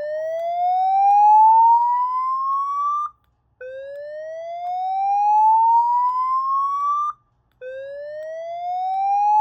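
Gentex SPKE8-15/75CW speaker strobe sounding the slow whoop evacuation tone: three loud rising sweeps, each climbing steadily in pitch for about three and a half seconds, with short breaks between them. This is the fire-alarm signal that alternates with the voice evacuation message.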